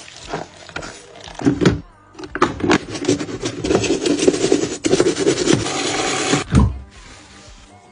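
Scrubbing and rubbing on a washing machine's parts: a few knocks, then several seconds of vigorous back-and-forth scrubbing that stops with a thud near the end.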